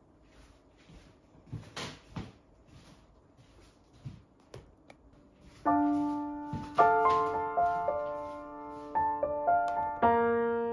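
A few light knocks and taps, a cardboard box being set down on a wooden table, then solo piano background music starts about halfway through and carries on.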